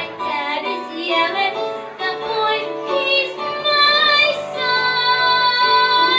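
Show-tune music with singing by a young voice, ending on one long held note.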